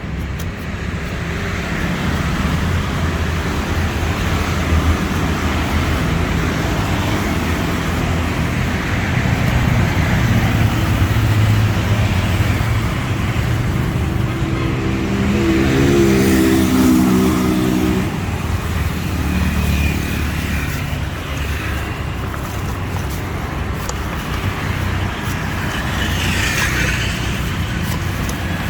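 Steady street traffic: engines running and passing, with a stronger pitched drone for about three seconds past the middle that cuts off suddenly.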